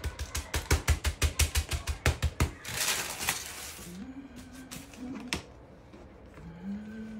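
Hands patting semolina dough flat on a laminate kitchen countertop: quick, even slaps, about five a second, for the first two and a half seconds. Then a short rustle as the pastry sheet is lifted.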